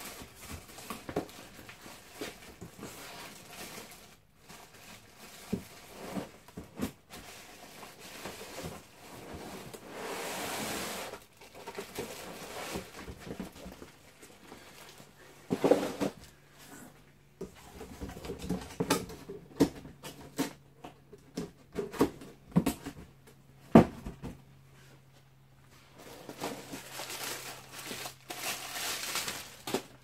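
A cordless stick vacuum being unpacked by hand: cardboard box flaps and moulded pulp packaging handled, with rustling of plastic wrapping and scattered knocks, a few of them sharper thuds.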